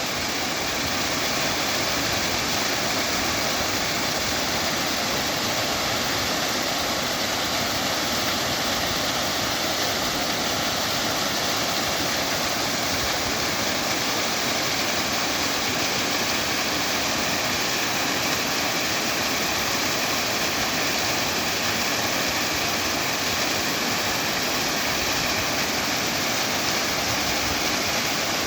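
Waterfall: falling water in a steady, even rush.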